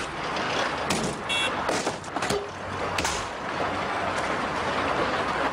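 Road traffic: cars driving past on a highway, with a short high beep a little over a second in and a few sharp knocks.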